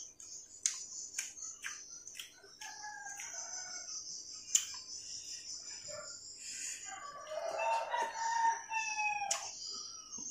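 A rooster crowing, one long call of about two seconds starting about seven seconds in, with shorter calls earlier. Over it come sharp clicks and smacks of someone eating by hand, the loudest about halfway through.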